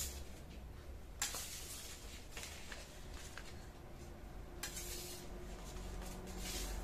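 Paper banknotes rustling as a plastic scraper sweeps them across a countertop onto a ceramic plate, with a sharp click about a second in and another past four seconds as the scraper strikes the plate.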